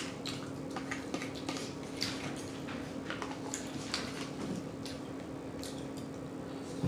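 Close-miked chewing and lip smacking: a run of small, irregular wet clicks and squelches over a steady low hum.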